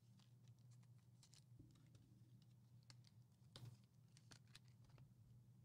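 Near silence: faint, scattered clicks of trading cards being handled, the clearest about three and a half seconds in, over a faint steady low hum.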